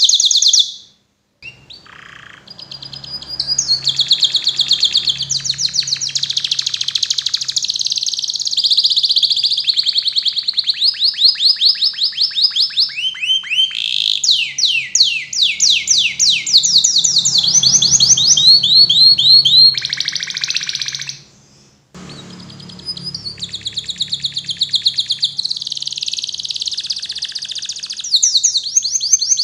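Domestic canary singing a long song of rapid high trills and rolls, some held at one pitch and some sliding downward. The song breaks off abruptly twice, about a second in and again about three-quarters of the way through.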